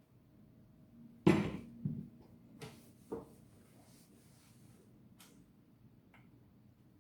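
A sharp knock about a second in, a second softer knock just after, then a few light clicks: household objects being handled and set down during cleaning.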